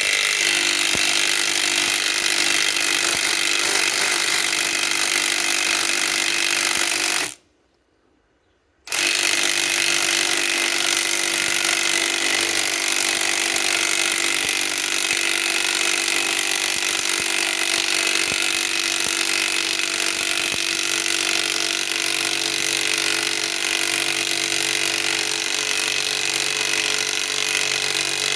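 Cordless impact wrench hammering continuously as it drives an 8-inch lag bolt into hardwood under heavy load; it stops for about a second and a half around a quarter of the way in, then resumes hammering.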